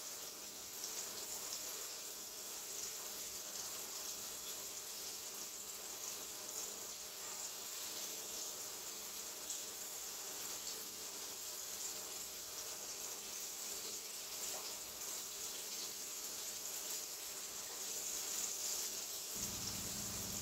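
Chicken pieces frying in hot grease in a skillet: a steady sizzle with fine crackling. A low hum joins near the end.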